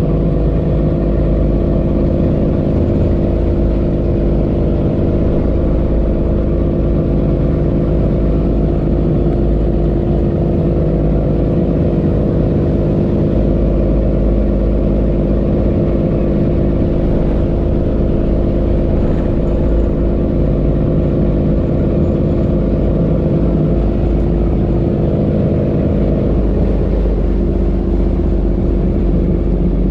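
Boat engine running steadily at a constant speed, a low rumble with a steady hum of tones; its note changes near the end.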